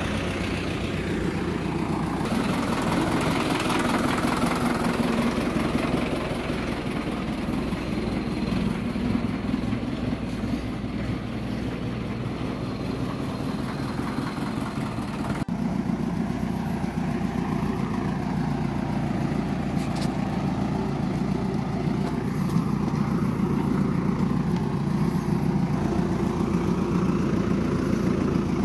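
An engine running steadily, a low even drone with no change in speed.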